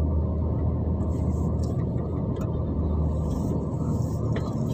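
Steady low rumble of a car's engine and tyres, heard from inside the moving car's cabin.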